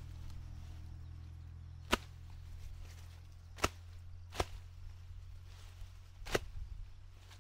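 Four sharp strikes, irregularly spaced one to two seconds apart, over a steady low hum.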